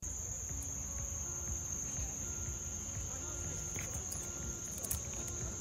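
Insects trilling steadily in one unbroken high-pitched drone, over a low uneven rumble.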